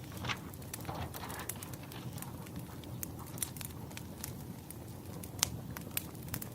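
Wood fire burning: a steady low rush of flames with irregular sharp crackles and pops of the burning logs, one louder pop about five seconds in.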